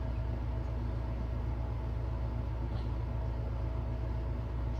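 Steady low electrical hum of room background noise, with no distinct event.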